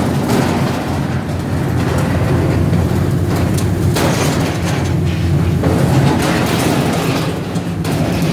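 Caterpillar 318C excavator's diesel engine running steadily as its grapple lifts a bundle of irrigation pipe. The pipes knock and clatter against each other several times.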